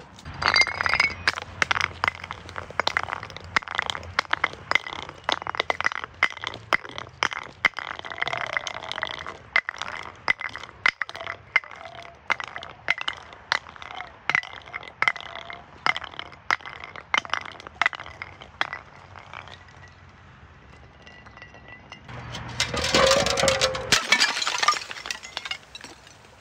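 Glass bottles clinking, cracking and breaking: a long run of sharp clinks and cracks, then a louder burst of breaking glass near the end.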